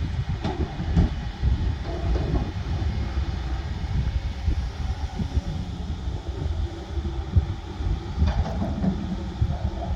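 Heavy diesel engine of a dump truck rumbling steadily under load, a low uneven drone.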